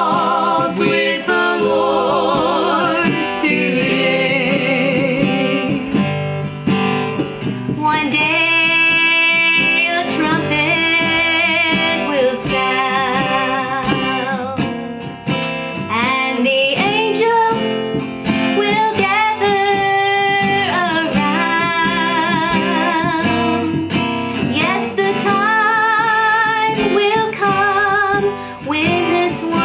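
Hymn sung in harmony by a man's and women's voices over a strummed acoustic guitar, the held notes sung with vibrato.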